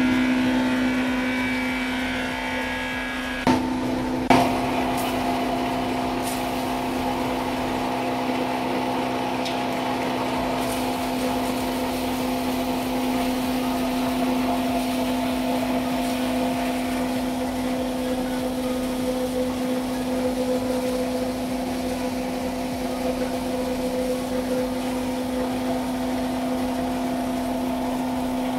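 A 3 HP belt-driven blower pulverizer, an electric-motor spice hammer mill, running at full speed with a steady whine. Two sharp knocks come about three and a half and four seconds in.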